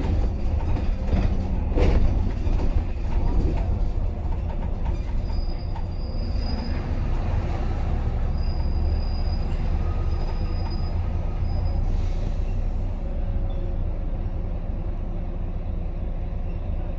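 Volvo B9TL double-decker bus's six-cylinder diesel engine running with a steady low rumble, heard from inside the upper deck. A couple of knocks sound in the first two seconds and faint high squeals come through the middle as the bus slows to a halt in traffic and sits idling.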